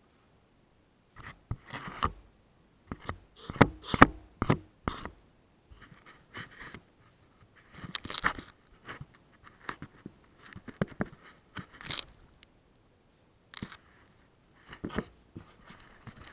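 Handling noise on an action camera: irregular rubbing, scraping and clicks of something brushing against the camera's housing, in uneven bursts with short gaps.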